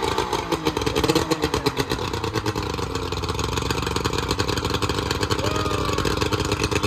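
Old Bayliner boat's outboard motor running steadily just after being started, a fast, even engine pulse throughout.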